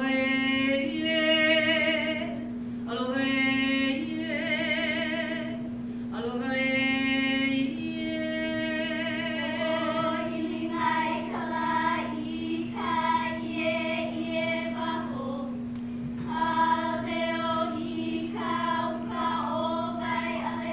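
Hawaiian hula chant (mele) sung in unison by children's voices, held mostly on one steady reciting pitch with short steps up, with long sustained syllables carrying a wavering vibrato.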